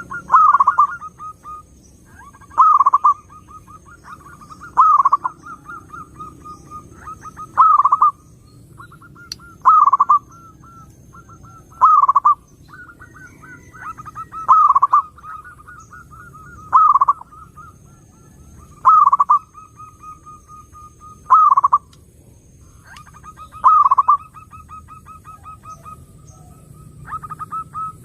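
Zebra dove (perkutut) cooing. The same song phrase repeats about every two seconds: a quick run of soft staccato notes that ends in a louder coo.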